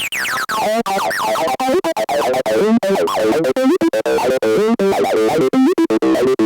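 Roland TB-03 bass synthesizer playing a sequenced acid bassline of short, rapid notes with the overdrive switched on. A resonant filter sweep makes the tone squelch and chirp.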